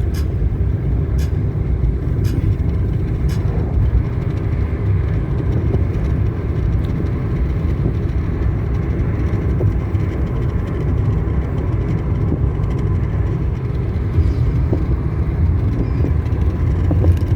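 Steady low road and engine rumble heard from inside a moving car's cabin. A few faint ticks come about once a second during the first three seconds.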